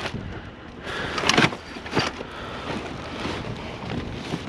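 Steady outdoor rumble and wind noise on the microphone, with a couple of sharp knocks about one and two seconds in, typical of scrap being handled.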